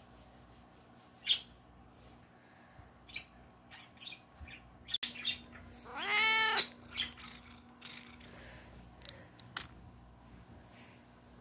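A Siamese cat gives one meow, rising then falling in pitch, about six seconds in. Around it come a few short light clicks and soft rustles of cat toys being handled, the sharpest about a second in and about five seconds in.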